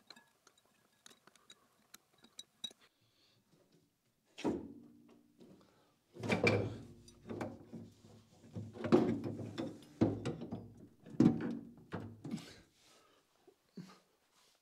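Heavy metal clunks and knocks as a cast-iron bandsaw gearbox is worked loose and lifted out of the saw's base. A few faint clicks come first, then a single knock about four seconds in, and then a run of louder clunks with a low ring.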